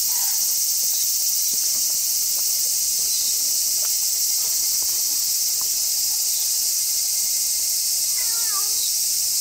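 Steady, loud high-pitched chorus of insects, like crickets, running throughout, with faint scattered clicks. Near the end a short wavering meow, the kind a calico mother cat gives while calling for her missing mate and kittens.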